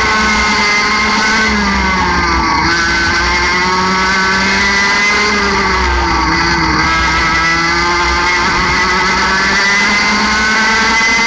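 60cc two-stroke mini kart engine running at high revs, heard onboard. Its pitch drops twice as the kart slows for corners, about two and a half seconds in and again near the middle, then climbs back as it accelerates out.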